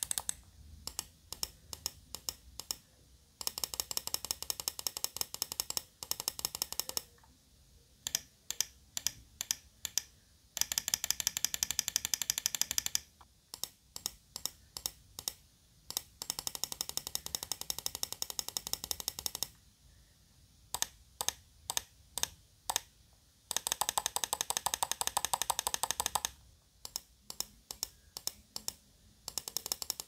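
Gaming mouse microswitches clicking. A swapped-in TTC 169-60M-2336, then a ZF DGBE-FL60, in the left button is compared with the stock Asus ROG switch in the right. Spells of single clicks, about three a second, alternate with fast runs of rapid clicking.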